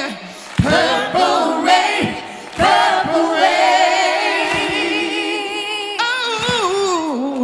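Wordless gospel-style singing from a lead singer and a backing choir, in long vibrato-laden phrases with bending runs and little instrumental backing. Short breaks fall between phrases about half a second and two and a half seconds in.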